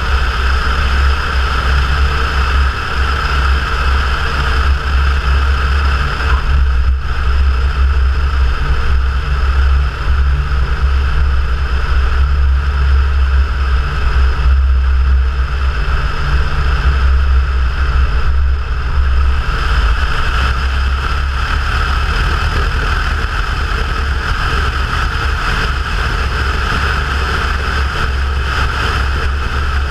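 Cessna 172's piston engine and propeller running steadily, a loud continuous drone.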